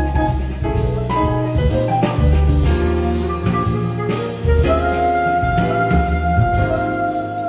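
Jazz music with bass and drums, playing through a Yamaha CA-2000 stereo amplifier. About halfway through, a long note is held over the band.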